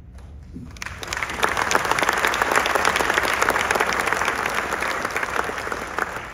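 Audience applauding in a theater: a dense round of clapping that swells up about a second in and dies away near the end.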